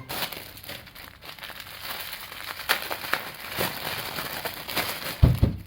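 Plastic packaging crinkling and crackling as a toy is unboxed, with a low thump about five seconds in.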